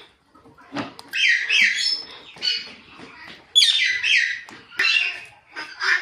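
Alexandrine and ring-necked parakeets calling: runs of harsh, high-pitched squawks and chirps, repeated several times a second in bursts with short gaps between them.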